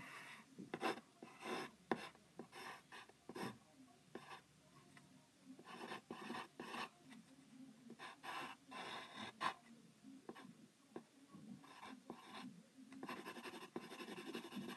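Pencil scratching on paper in short, irregular strokes, faint, with a busier run of strokes near the end.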